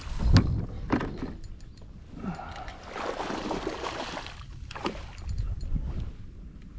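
Water splashing and sloshing against a kayak, with several sharp knocks on the hull; the splashing is heaviest about three to four seconds in.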